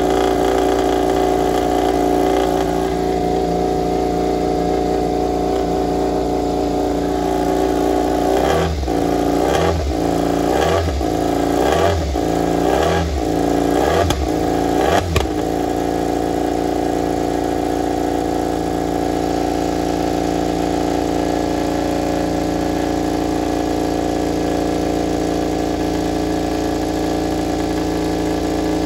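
KTM RC16 MotoGP bike's V4 engine running on a warm-up, steady at idle, with seven quick throttle blips about once a second in the middle before it settles back to a steady idle.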